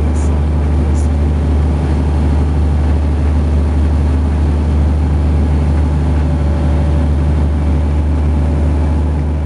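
A small fishing boat's engine running steadily under way, a low, even hum, with water rushing past the hull and wake. It fades near the end.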